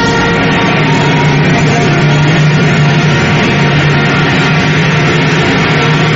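Loud music from a Guatemalan procession band playing a funeral march (marcha fúnebre), with a low note held steadily underneath.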